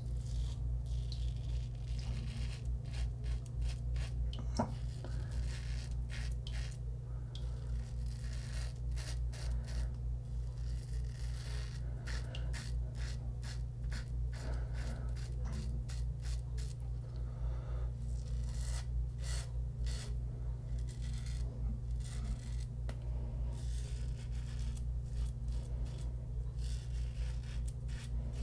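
Merkur 34G double-edge safety razor with a Wilkinson Sword blade scraping through lather and stubble on the first pass, a crisp rasp with each of many short, repeated strokes. A steady low hum runs underneath.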